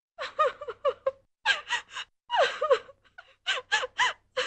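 A woman sobbing theatrically: short, high gasping cries in quick groups of three or four, each rising and falling in pitch.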